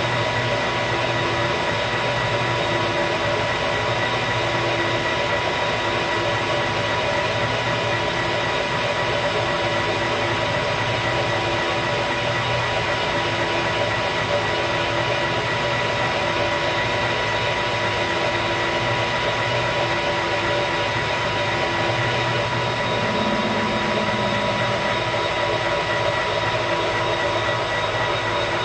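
Metal lathe running steadily while turning aluminium stock: an even machine hum with a constant high whine.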